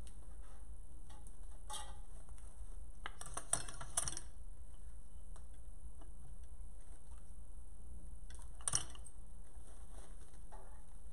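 Light clicks and rustling from artificial flower stems and small tools being handled on a worktable, over a steady low hum. A cluster of sharper clicks comes a few seconds in and another later on.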